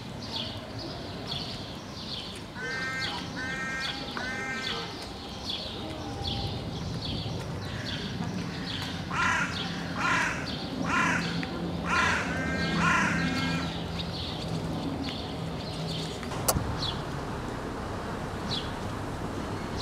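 Birds calling: a small bird chirping over and over, two or three chirps a second, with harsh cawing calls over it, three close together about three seconds in and five more around ten seconds in.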